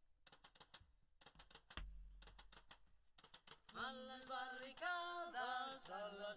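A rapid, irregular run of faint clicks, then singing begins about four seconds in.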